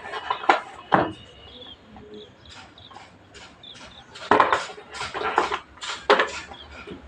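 Handling noise from unboxing a tablet: irregular knocks and clatters of the box and its contents, a couple early on and a denser run of them from about four seconds in.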